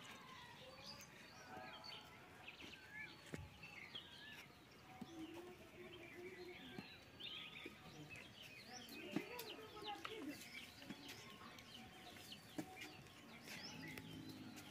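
Faint rural yard ambience: birds chirping and calling throughout, with a few lower calls and occasional faint knocks.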